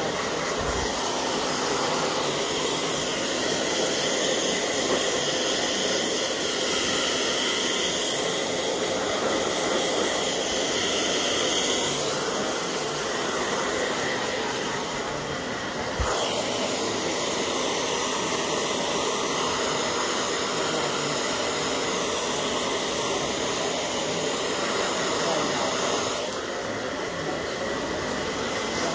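Handheld hair dryer running steadily while blow-drying hair. Its rushing tone shifts as it is moved about the head, changing noticeably about 12, 16 and 26 seconds in.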